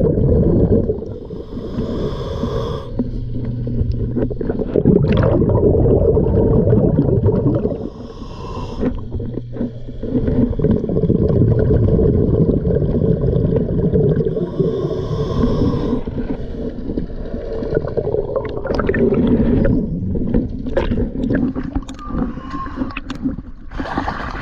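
Diver breathing underwater through a regulator: each exhale a few seconds of loud bubbling and gurgling, with quieter inhales between.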